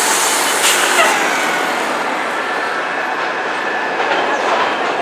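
Elevated subway train running past on the rails, a steady loud rumble with a faint squeal of wheels, mixed with a city transit bus running at the stop.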